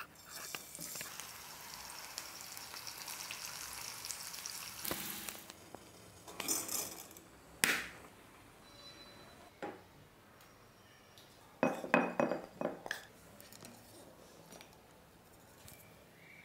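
Sliced zucchini frying in olive oil in a stainless steel pan, a steady sizzle that stops about five seconds in. Later comes a sharp clink, then a quick run of loud clinks and taps on a ceramic bowl.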